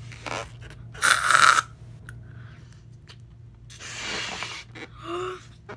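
Small rubber water balloon being blown up by mouth: several hard puffs of breath pushed into it, the loudest about a second in, with a brief squeaky tone near the end.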